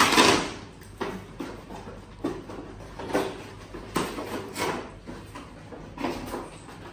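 Cardboard toy-car box being cut and torn open with a small blade: a series of short scraping, ripping sounds at irregular intervals, the first the loudest.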